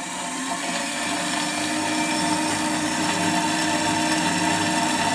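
Hafco BS-5V portable bandsaw running and cutting through 10 mm mild steel plate: a steady motor sound with several held tones over a hiss, getting gradually a little louder.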